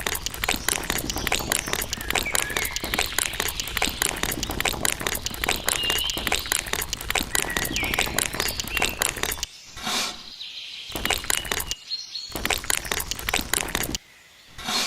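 Dense, rapid crackling and clicking, with birds chirping over it; the crackling breaks off briefly three times in the second half.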